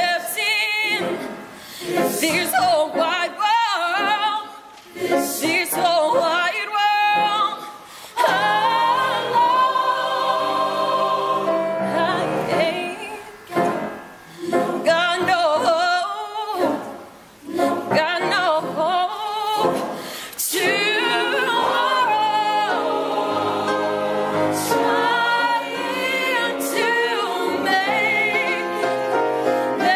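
Choir singing, a single voice with vibrato first, then the full choir joining in sustained harmony about eight seconds in.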